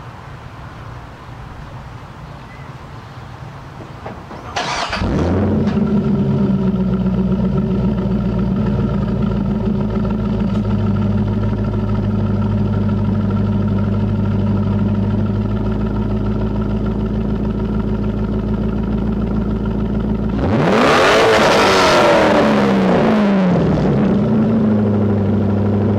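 Corvette Z06 V8 starting about five seconds in and settling into a steady idle, then revved once near the end, the engine note rising and falling over about three seconds before dropping back to idle.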